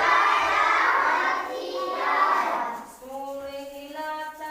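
A group of children's voices calling out animal imitations together. About three seconds in, this gives way to a child's voice holding steady, high-pitched notes in short stretches.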